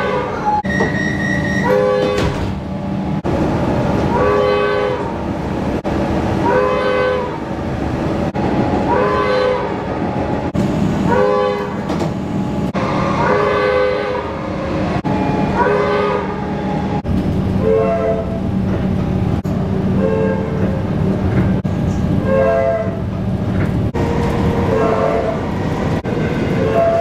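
Comeng electric train's horn sounding a long run of short blasts, about one every one to two seconds, each bending slightly up and then down in pitch, over a steady hum and rolling rail noise.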